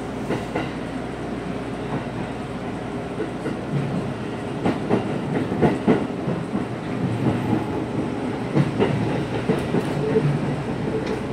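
Seibu 2000 series electric train running, heard from inside the front car: a steady rumble with the wheels clacking over rail joints and points, the clacks coming thickest in the middle and again near the end.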